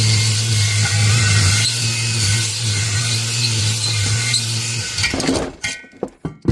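Power drill spinning a cylinder hone in the cylinder bore of a Kawasaki FB460V engine: a steady motor hum with a scraping hiss as the stones cut cross-hatch grooves into the cylinder wall. It winds down about five seconds in, followed by a few short knocks.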